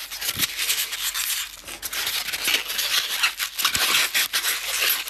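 Packaging being handled: a polystyrene foam packing block rubbing and scraping against the cardboard box, with continuous rustling and small clicks.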